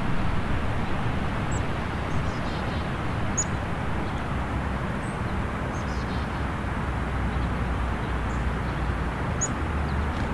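Steady outdoor background rumble and hiss, with a few faint, short, high-pitched songbird chirps scattered through it.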